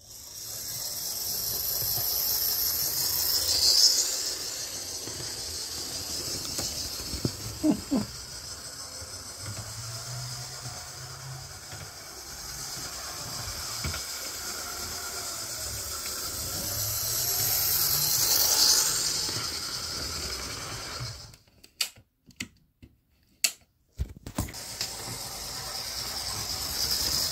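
HO/OO scale model diesel locomotive running around sectional track: a steady whirring hiss from its small electric motor and gears, with wheels rattling on the rails. It grows louder twice as the loco passes close. Near the end the sound drops out for a couple of seconds, with a few sharp clicks.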